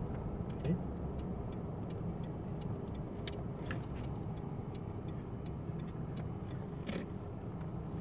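Car cabin noise while driving slowly: a steady low rumble of engine and tyres, with scattered small clicks and ticks and a sharper one about seven seconds in.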